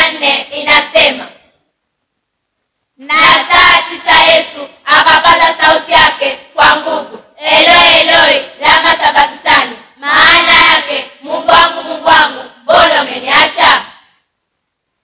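A group of children and young people singing together without accompaniment, in short phrases with brief breaks between them. The singing pauses about a second and a half in, starts again about three seconds in, and stops shortly before the end.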